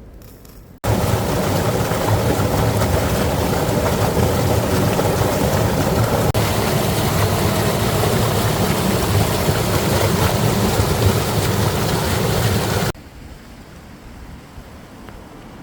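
Loud steady rushing noise with a low hum beneath it, starting abruptly about a second in and cutting off abruptly a few seconds before the end.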